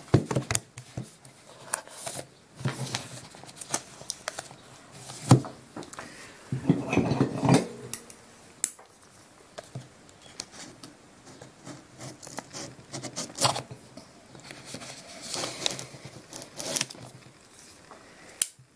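Tape being cut and pulled off a paper-wrapped cardboard box, the wrapping paper rustling and crinkling. The sound comes as a string of irregular short scrapes, clicks and knocks.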